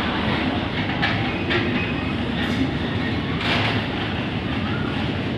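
Freight train of steel oil tank wagons rolling past: steady rumble of wheels on the rails, with several clacks as the wheels cross rail joints and a faint wheel squeal.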